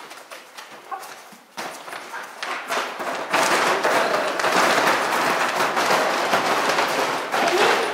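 Plastic sheeting crinkling and crackling under a dog's paws as it walks over it: scattered crackles at first, then loud, continuous crinkling from about three seconds in until near the end.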